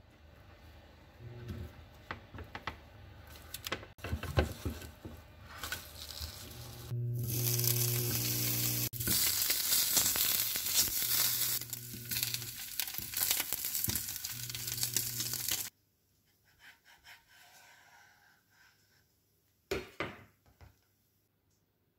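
Strips of Spam sizzling as they fry in a pan, nudged with a silicone spatula. Before that, the spatula scrapes and taps in the pan. The sizzle starts about a third of the way in and cuts off suddenly about two-thirds through, followed near the end by a few light knocks of a knife on a wooden cutting board.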